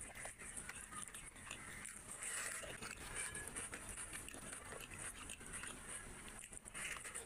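Eating by hand: fingers squishing and mixing rice with curry on a plate, and mouth chewing. The sound is a close, irregular run of wet squelches, smacks and small clicks.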